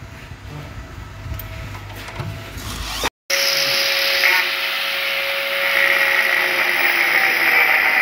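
Low handling rumble, then after a brief cut an electric angle grinder running, a steady motor whine under a harsh hiss as its disc grinds into the metal edge of a door. The grinding gets louder about six seconds in.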